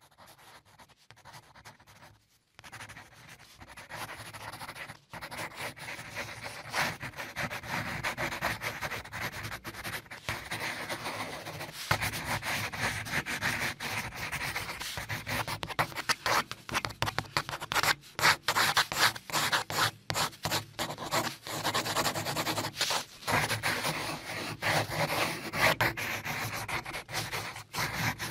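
Pencil shading on textured drawing paper: a dense run of rapid scratchy strokes, faint at first, then louder after a few seconds and louder again about halfway through.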